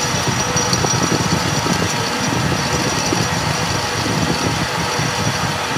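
An engine or motor running steadily with a low rumble.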